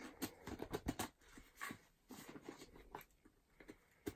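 Faint rustling and crackling of a mail package being handled and opened, with many small irregular clicks and taps.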